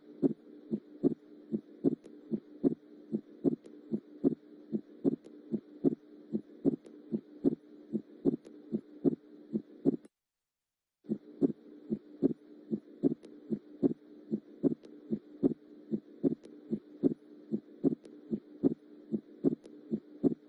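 Recorded heart sounds, regular lub-dub beats over a steady hum, played as a teaching example of normal splitting of the second heart sound (S2) with inspiration, the pulmonary valve closing later than the aortic. The recording stops for about a second halfway through, then plays again.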